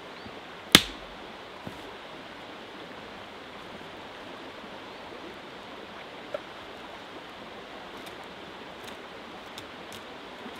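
Small river flowing steadily, with one sharp, loud crack about a second in, two smaller knocks after it, and a few faint ticks near the end.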